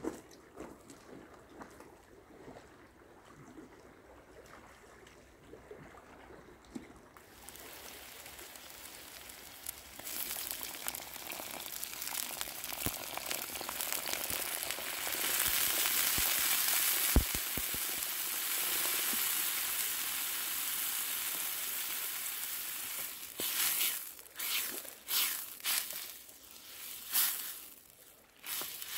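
Sizzling and pouring in a hot black iron pan as water goes onto leeks and soaked peas over a fire, loudest for a few seconds in the middle. Near the end a wooden spoon stirs and scrapes the pan in several short strokes.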